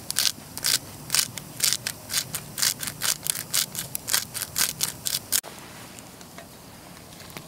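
A hand-twisted spice grinder grinding over a pot, a steady run of short rasping crunches about two or three a second. About five seconds in it cuts off abruptly, leaving only the faint crackle of a wood campfire.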